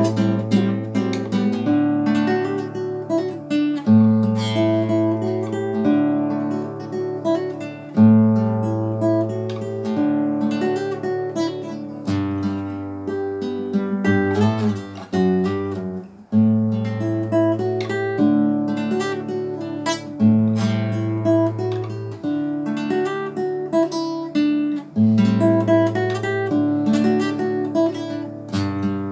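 Acoustic guitar played solo: a picked melody over strummed chords, with the bass note changing about every four seconds.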